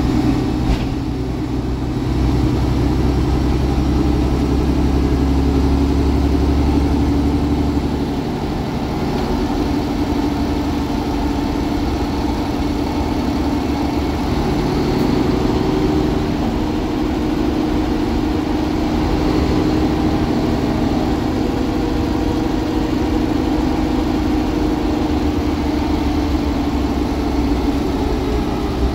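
Mercedes-Benz Conecto G articulated city bus under way, heard from inside the passenger cabin: its Mercedes-Benz OM 457 LA 12-litre straight-six diesel runs steadily under a haze of road and tyre noise. The low engine drone changes pitch about eight seconds in and again a few seconds later.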